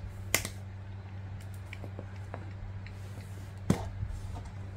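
Plastic flip-top lid of a formula-milk tin being opened: small clicks and ticks as the tamper seal is picked and torn, then a sharp click as the hinged lid snaps open near the end.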